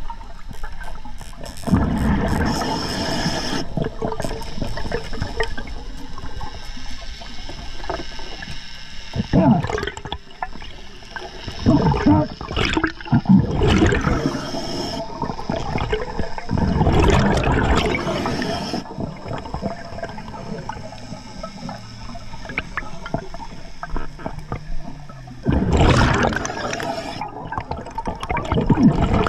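Underwater sound of a diver's exhaled bubbles rushing and gurgling past the camera in loud bursts several seconds apart, over a steady underwater hiss.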